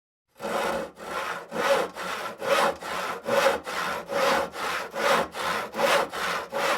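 Hand saw cutting through wood in steady back-and-forth strokes, about two to three a second, alternating louder and softer as the blade is pushed and pulled.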